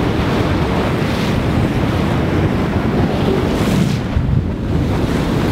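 Wind buffeting the microphone over the wash of sea water along a racing sailboat's hull. It is a steady, heavy rumble with brief swells of hiss.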